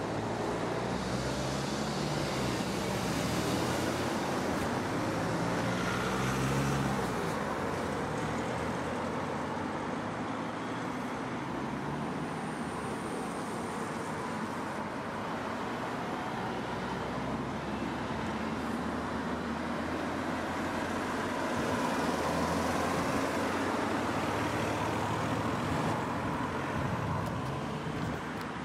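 Road traffic: cars driving past, a steady wash of engine and tyre noise that swells with louder passing vehicles a few seconds in and again about twenty-two seconds in.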